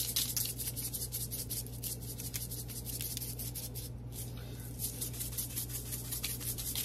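Weber roasted garlic and herb seasoning shaken from its shaker jar over raw chicken breasts: rapid shakes, several a second, with a short pause about four seconds in. A steady low hum runs underneath.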